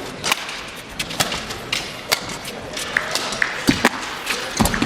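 Badminton rally: a rapid, irregular series of sharp racket hits on the shuttlecock and thuds of footwork on the court, over a steady arena background.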